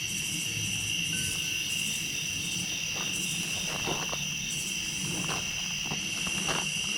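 Crickets singing a steady, high-pitched chorus of continuous trilling, with a few faint rustles from about halfway through.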